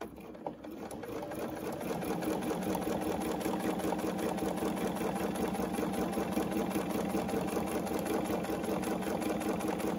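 Domestic sewing machine starting up and stitching steadily at speed for free-motion ruler quilting. Its needle strokes run in a fast, even rhythm, picking up speed over the first couple of seconds.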